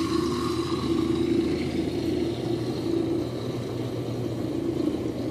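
Electric butter churn's motor running steadily, spinning its beater through cream in a glass barrel jar at the start of churning.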